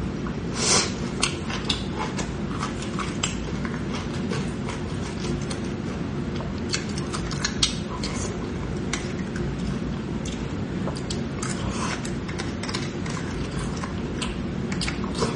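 A metal spoon scraping and clicking inside a braised beef marrow bone as the marrow is dug out, with many short sharp clicks, plus wet mouth sounds of eating, over a steady low background hum.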